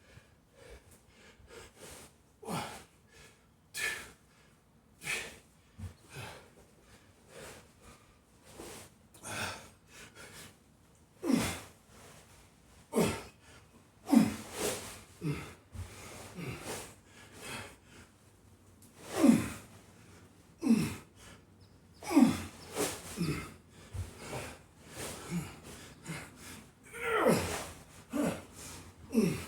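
A man breathing hard under heavy exertion: a string of forceful exhalations and short grunts, many dropping in pitch, every second or two, getting louder from about eleven seconds in.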